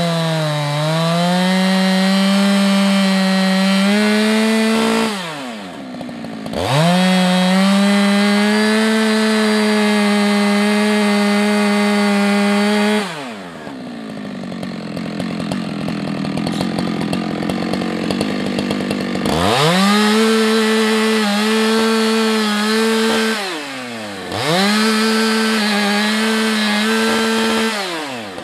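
Husqvarna 365 X-Torq two-stroke chainsaw running at full throttle while cutting into a large, well-seasoned sycamore stem. The pitch sags a little under load. Three times the saw drops back to low revs, once for several seconds, then revs up again.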